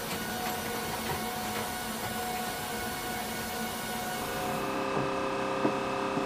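Steady machine drone with held whining tones inside an AC-130 gunship's cabin, with a few light clicks. About four and a half seconds in it switches to a different steady engine hum, with a sharp click near the end.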